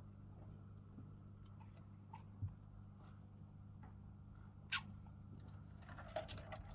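Faint scattered clicks and scratches of young pet rats' claws as they move about their cage, with one sharper click about two-thirds of the way through. Near the end comes a quick run of scrabbling as a rat dashes through a tube. A steady low hum lies underneath.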